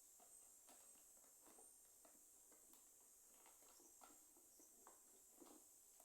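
Near silence, with faint, scattered light clicks and taps.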